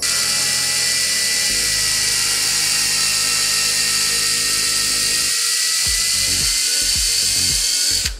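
Electric drill running at high speed, a small twist bit boring into a clear plastic cylinder: a steady, loud, high-pitched whine that stops abruptly near the end as the bit is lifted out.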